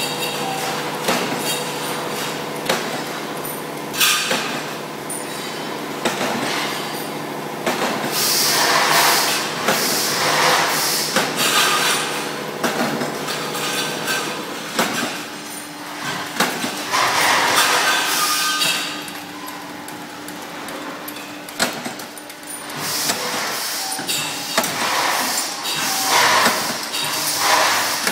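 Metalworking factory machinery, flywheel punch presses among it, running with a steady hum under repeated metallic clanks and knocks. Several loud stretches of hissing noise rise over it.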